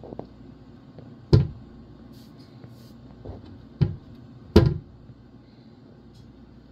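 Tabby cat purring steadily close to the microphone, a low continuous rumble. Three loud sharp knocks cut through it, about a second and a half in, near four seconds and again half a second later, with a fainter one just before them.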